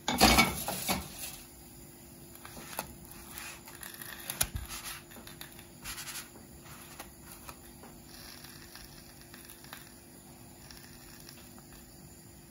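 Kitchen handling noises around a crepe in a nonstick frying pan: a loud rustle in the first second, then light scrapes and taps as a hand pats and shifts the crepe, with one sharper knock about four and a half seconds in.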